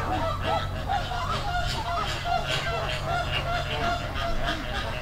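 Flock of American flamingos calling: many short, goose-like calls overlapping continuously, over a steady low hum.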